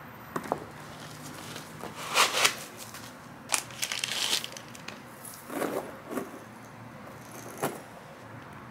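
Handling sounds of a silver handbag: irregular rustles of the bag's shiny material and small clicks from its metal clasp and handles as hands work it, in short separate bursts.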